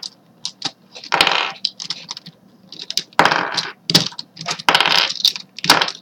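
Hard plastic clicking and rattling of a Rubik's brand 4x4 cube being taken apart: edge and corner pieces snapping out of the twisted outer layer and clattering onto the desk. The clicks come irregularly, with longer rattles about a second in and again around three seconds in.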